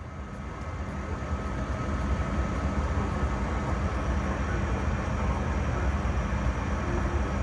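Steady drone inside a jet airliner's cabin in flight, engines and airflow, fading in over the first couple of seconds. It has a strong low rumble and a faint steady whine above it.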